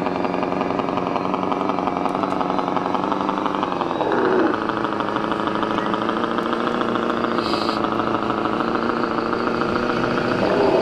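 Scale RC truck's sound module playing a diesel engine at low revs as the truck drives, the pitch dropping briefly about four seconds in. A brief high tone sounds about seven and a half seconds in.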